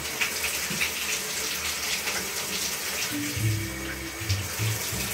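Water running into a bathtub, with light splashing as a cat is washed in it.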